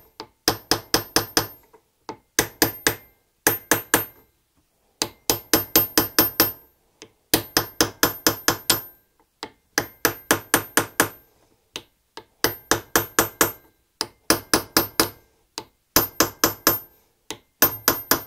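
Hammer tapping a punch in quick runs of sharp metallic strikes, about five a second, with short pauses between runs. The strikes drive the aluminium sealing plug back into the cover of a Hanomag R16 tractor's hydraulic pump over a new O-ring, and set it tight.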